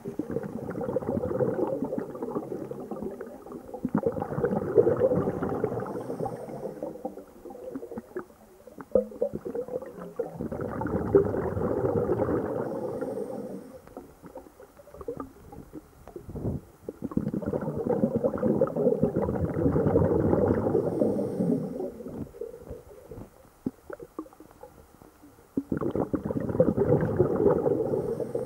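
A diver's exhaled air bubbles, heard underwater: long bubbling exhalations that come back roughly every eight seconds, with quieter gaps between breaths.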